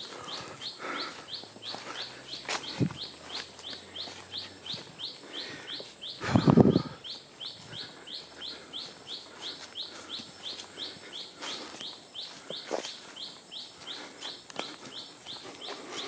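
Rainforest ambience: a steady high drone over a fast, even series of short rising chirps, about three a second. A few faint clicks are heard, and one brief louder sound comes about six and a half seconds in.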